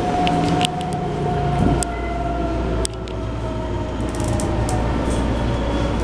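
Running sound of a Keikyu 1500-series train with a Mitsubishi GTO-VVVF inverter, heard inside the passenger car: a steady inverter whine with lower motor tones that shift in pitch, and wheels clicking on the rails in the first second or so. The train is nearing its next stop, typical of slowing under the inverter's braking.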